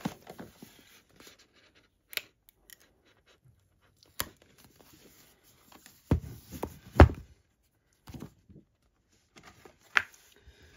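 A sticker peeled off a cardboard box set, then the box handled and opened: rustling, scattered taps and clicks, and a few knocks, the loudest about seven seconds in.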